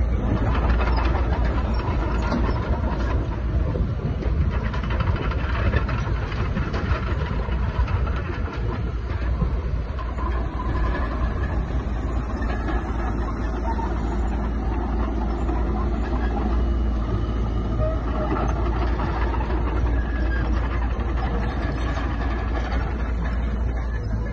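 Heavy diesel earthmoving machinery running steadily under load, a dense continuous engine sound with a strong low rumble.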